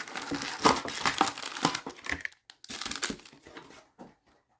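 Plastic wrapping crinkling and tearing in uneven crackles as a sealed box of hockey cards is opened and handled.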